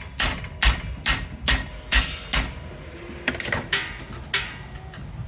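Hammer blows on the compressor's air line fittings: six sharp strikes at a steady two a second, bashing the line into alignment, then a few lighter taps and knocks.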